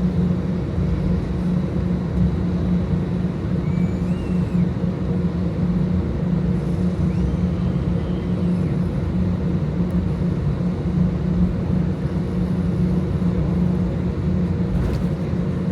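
Steady low drone heard inside an Airbus A320 cabin while taxiing: the IAE V2527-A5 engines at taxi power, with a constant hum and the rumble of the aircraft rolling.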